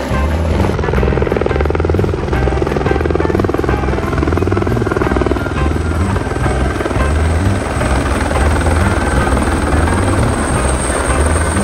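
Eurocopter AS350 helicopter flying low and close, its main rotor beating steadily over the engine.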